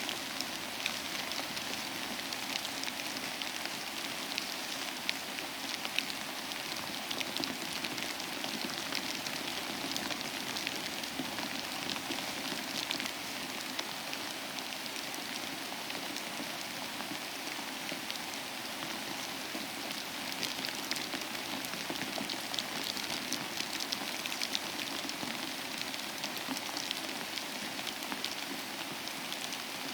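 Steady rain falling, a continuous hiss with many sharp individual drop hits scattered through it and no let-up.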